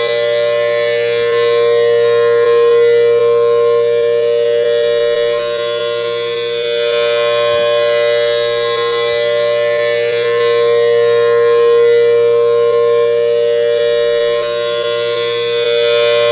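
Federal Signal Thunderbolt tornado siren sounding its steady alert tone, one held pitch with no rise or fall. It grows louder and softer about every nine seconds as the rotating siren head turns toward and away.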